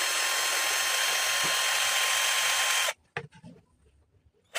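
Electric drill running steadily at full speed, boring a hole in a plastic chair, then released and stopping about three seconds in; a few light clicks follow.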